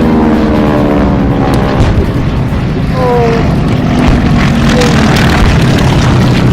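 Propeller airplane's piston engine running loud as it passes overhead. Its pitch slides down over the first couple of seconds, then it goes on as a steady drone.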